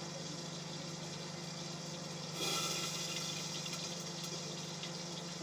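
Indesit washing machine running with water flowing through it over a steady low hum. A louder rush of water starts about two and a half seconds in and slowly eases off.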